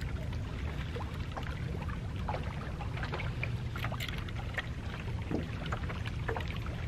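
Water lapping and splashing against the hull of a small boat, with scattered small splashes and clicks over a steady low rumble.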